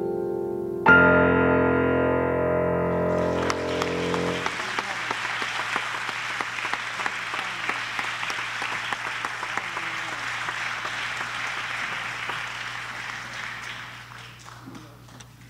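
Electronic keyboard playing a piano piece's final chord, struck about a second in and held for a few seconds. Audience applause comes in over the chord's end and goes on, fading away near the end.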